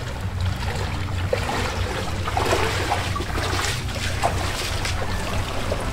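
Shallow seawater splashing and sloshing around the legs of people wading near the shore, over a steady low rumble.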